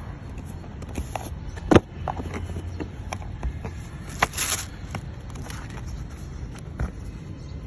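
Handling of cardboard boxes and plastic-wrapped clothing packets: scattered taps and knocks, the loudest a sharp knock a little under two seconds in, and a short rustle of plastic packaging about four seconds in, over a low steady background rumble.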